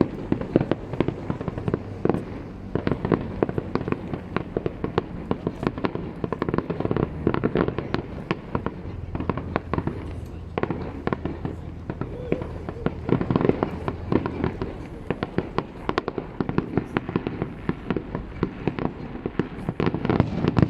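Professional fireworks display: aerial shells bursting in a dense, continuous barrage, many sharp bangs a second.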